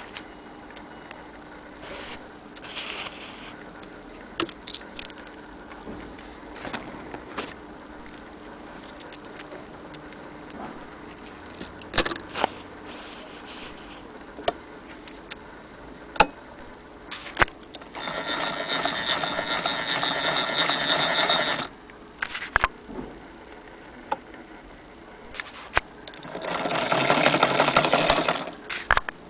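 Antique hand-crank sewing machine running in two bursts of a few seconds each, a fast mechanical clatter, the second burst near the end. Scattered clicks and knocks from handling come in between.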